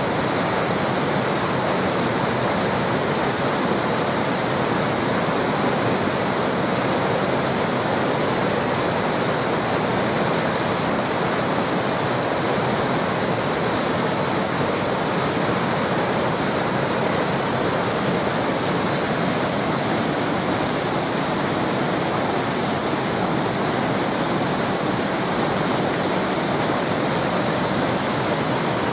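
Waterfall: water falling and rushing steadily, with no change in level.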